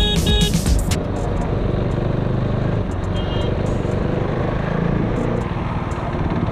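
Motorcycle being ridden: a steady rush of engine and road or wind noise. Background music stops suddenly about a second in.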